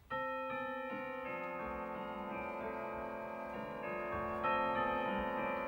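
Background music: piano playing slow, held notes.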